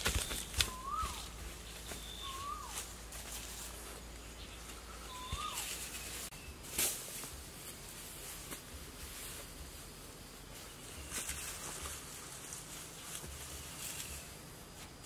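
A bird calls three times in the first six seconds, short whistled notes that rise and then drop. Around it, rustling and a few knocks as grass sods are handled and laid, the loudest knock about seven seconds in.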